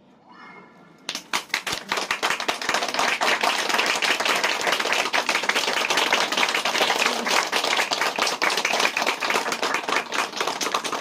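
Audience applause as a live song ends. It starts suddenly about a second in, keeps up steadily as a dense patter of claps, then cuts off abruptly.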